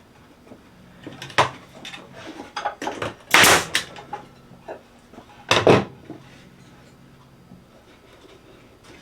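Wooden knocks and bumps from handling cedar fence pickets on a planter box: a sharp knock about a second and a half in, then two louder, longer bumps around three and a half and five and a half seconds in, with light clicks between.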